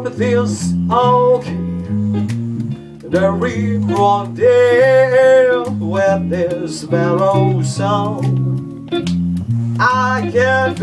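Small live band playing an instrumental break in a swing-blues tune: an electric bass walking steadily in even steps under a lead melody with bending, held notes, with guitar accompaniment.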